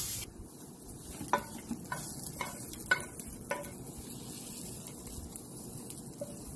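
Wooden spatula knocking and scraping against a non-stick frying pan of stir-fried julienned carrots, about five sharp taps in the first half, over a faint sizzle.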